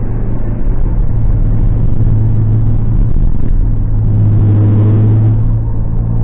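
Ford Crown Victoria police interceptor's 4.6-litre V8 idling steadily in neutral, heard from inside the cabin, with a brief swell about four seconds in. The idle is smooth after the cylinder 5 ignition coil was replaced to cure a P0305 misfire.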